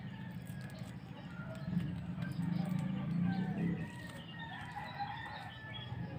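Chickens clucking and calling over a steady low hum, louder for a couple of seconds in the middle.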